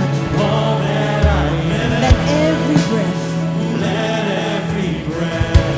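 Live worship band music with voices singing over a held chord, with a couple of drum hits.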